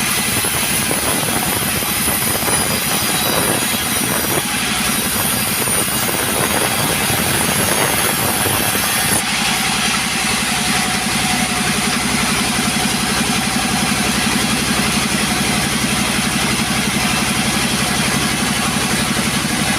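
Two-stroke chainsaw running steadily under load, ripping timber lengthwise. The sound changes abruptly about nine seconds in.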